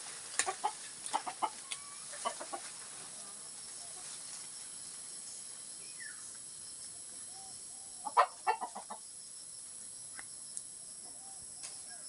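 Chickens clucking: scattered short clucks, with a louder run of them about eight seconds in.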